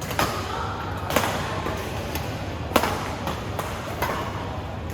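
Badminton rackets striking the shuttlecock during a rally: four sharp cracks roughly a second apart, with fainter knocks between them; the loudest comes near the middle.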